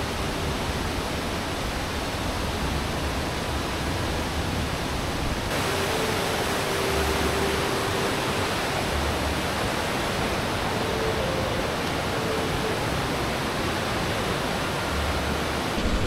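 Steady rush of a mountain stream's water over rocks, an even hiss that turns a little brighter about five seconds in.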